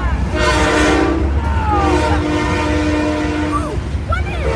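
Diesel locomotive air horn sounding a chord in two long blasts, the second longer, over the steady low rumble of a passing freight train.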